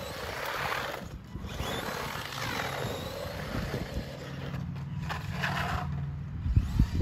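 1:16-scale electric remote-control truck driving, its motors whining up and down in pitch. There are a few heavy thumps near the end.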